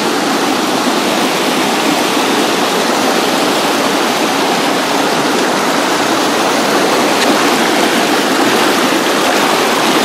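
Creek water rushing in a steady, even wash.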